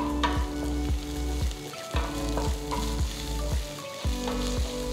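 Chopped onions, shallots, green chilli and curry leaves sizzling in hot coconut oil in a pan as they are stirred, with short clicks of the spoon against the pan.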